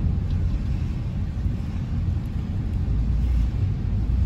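Steady low rumble of a moving vehicle, engine and road noise heard from inside the cabin.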